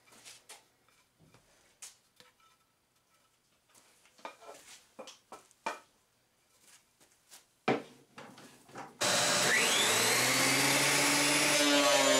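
Scattered light knocks of wood pieces being handled, then about three-quarters in a workshop power tool's motor is switched on, its whine rising as it spins up into a loud, steady rushing run.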